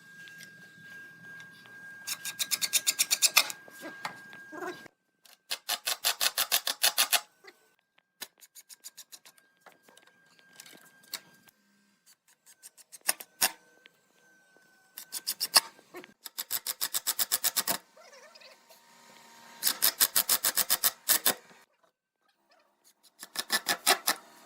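A hand tool scraping wood in rapid, evenly spaced strokes, in five bursts of one to two seconds each, with short pauses between them.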